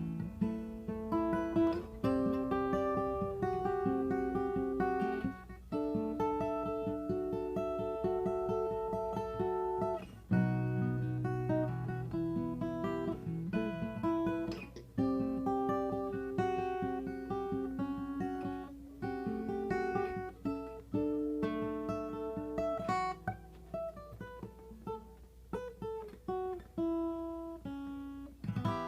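Acoustic guitar played by hand, picking notes and strumming chords while a song part is worked out, with a falling run of notes about three-quarters through.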